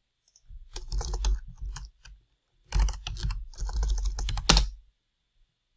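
A hand rapidly patting a scalp to work in hair powder, in two bursts of quick, thudding taps, each about one and a half to two seconds long.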